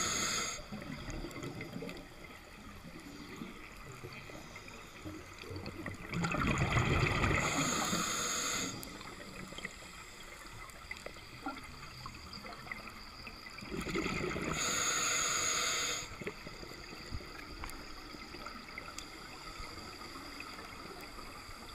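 Scuba diver's regulator underwater: exhaled bubbles in loud bursts of two to three seconds, one ending just after the start, one about six seconds in and one about fourteen seconds in, with quieter stretches between breaths.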